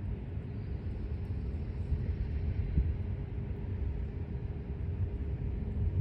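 Freight train rolling through a grade crossing, a steady low rumble with a faint steady tone above it.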